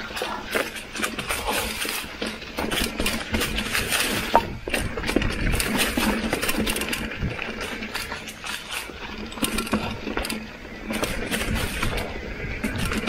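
Mountain bike rolling fast over a dry, leaf-covered dirt trail: tyres crunching through fallen leaves, with a dense run of clicks and rattles from the bike bouncing over roots and bumps.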